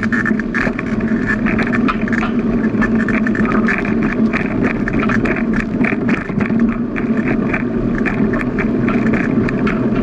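Riding noise of a bicycle picked up from on the bike: a steady rumble and hum with frequent small rattles and clicks as it rolls along a paved path.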